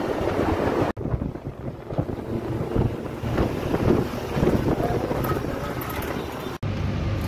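Wind buffeting the microphone over the rumble of a moving vehicle and road noise. The sound breaks off for an instant twice, about a second in and near the end, at cuts between shots.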